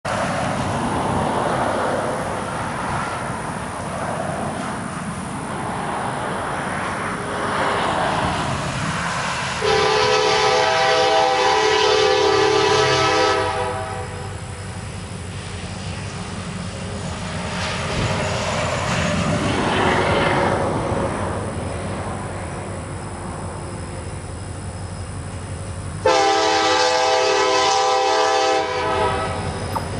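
Diesel locomotive air horn sounding two long chord blasts, the first about four seconds long and the second about three, from an approaching pair of CSX locomotives, an SD70MAC and a GE ES44AC running light. Between the blasts there is a steady background rumble.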